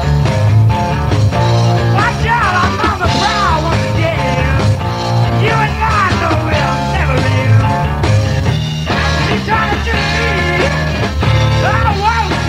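Rock band playing a twelve-bar song on a rehearsal tape: two guitars, bass guitar and drums. A lead line bends and wavers over the top several times.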